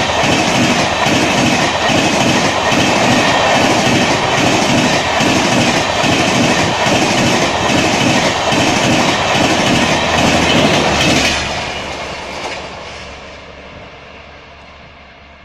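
Humsafar Express passenger coaches rushing past at speed, their wheels beating a regular clickety-clack. About eleven seconds in the last coach passes and the sound drops away, fading as the train recedes.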